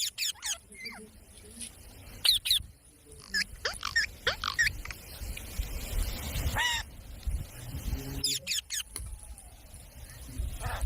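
Indian ringneck parakeet giving a string of short, sharp calls, about ten in all, in loose groups with short pauses between. Some calls sweep steeply up or down in pitch.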